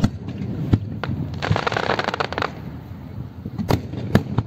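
Fireworks going off: a sharp bang, then a dense crackling spell of about a second, then a quick run of bangs close together near the end, over a steady low rumble.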